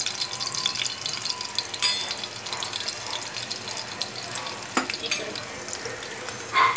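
Crushed garlic cloves sizzling in hot oil, frying until they turn red as the tempering for a curry. A steady crackling hiss, with a couple of sharp clicks about two and five seconds in.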